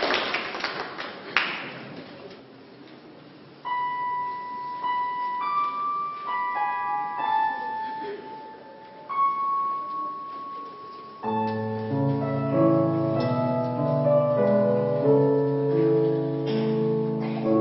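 Applause dying away, then a keyboard playing a slow melody one note at a time, joined about eleven seconds in by full, sustained low chords.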